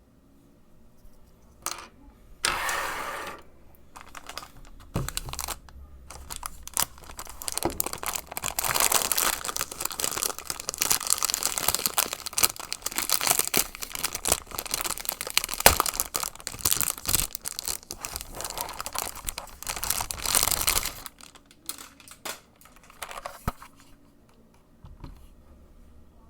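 Plastic packaging crinkling and rustling as a keyboard is unwrapped, with a short tearing sound about three seconds in. The crinkling is dense for about fifteen seconds, then thins out into a few scattered taps and clicks.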